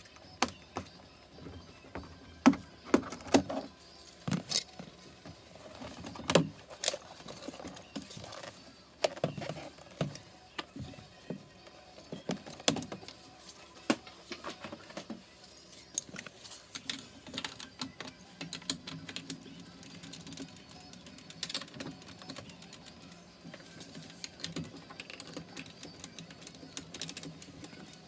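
Irregular clicks and knocks of small parts and tools being handled, loudest in the first half, with a faint low hum in the background in the second half.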